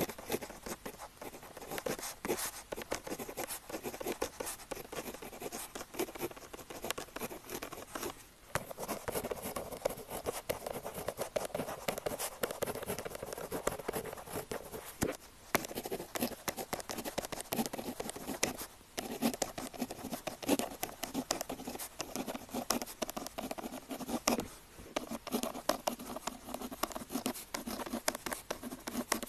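Pen tip scratching on paper in continuous writing strokes, stopping briefly four times.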